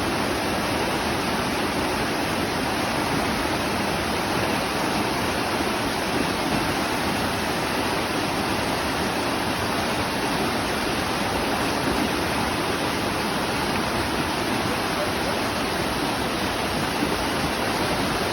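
Running water rushing steadily, one even, unbroken rush with no separate splashes or changes.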